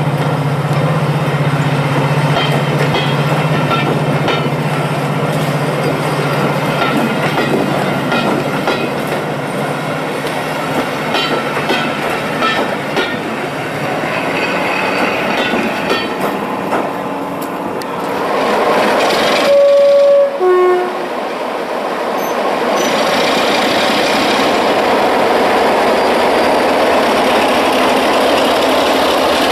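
Passenger coaches rolling past on jointed track with a steady rumble and light clicking from the wheels. About twenty seconds in, a diesel locomotive's two-tone horn sounds, a higher note then a lower one. A diesel locomotive engine runs steadily after it.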